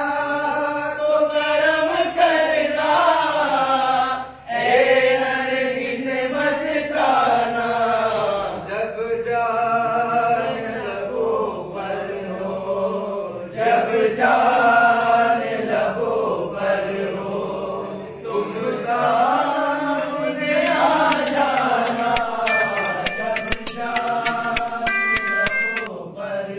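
A group of men's voices chanting together in long melodic phrases, a Sufi devotional chant, with short breaks between phrases. Near the end a few clicks and short beeps sound over it.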